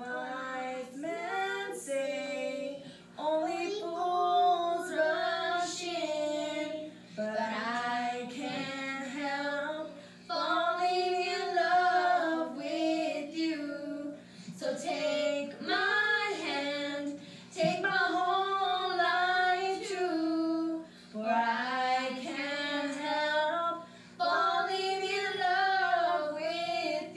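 Girls singing a song, in sung phrases with held notes and short breaks between them.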